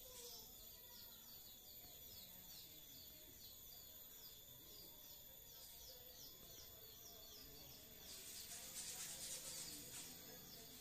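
Faint background ambience with a small bird chirping: a short, high falling note repeated about three times a second. A soft hiss swells about eight seconds in.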